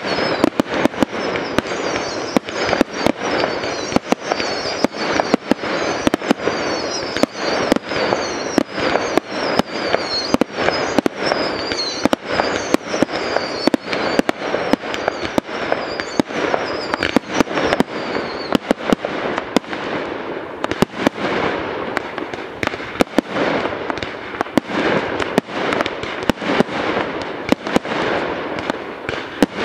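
Aerial fireworks display firing in rapid succession: a dense run of sharp bangs from shell bursts over continuous crackling. For about the first two-thirds, high whistles falling in pitch repeat over and over, then stop while the bangs and crackling carry on.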